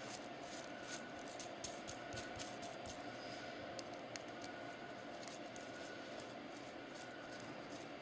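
Light clicks and scrapes of a steel threaded rod being screwed by hand into a double-ended ball joint. The clicks are busiest in the first three seconds and come only now and then after that, over a steady faint hiss.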